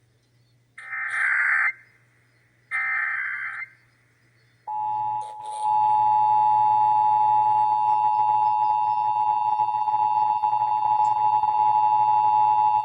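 Emergency Alert System test tones. First come the last two of the SAME header's three short bursts of screechy digital data. About five seconds in, the EAS two-tone attention signal (853 and 960 Hz) starts and holds steady for about eight seconds before cutting off.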